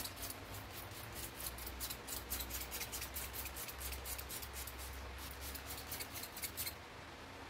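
Quick, even scrubbing strokes, about five a second, cleaning the lower bearing seat of a steering head. They stop about seven seconds in, leaving a faint low hum.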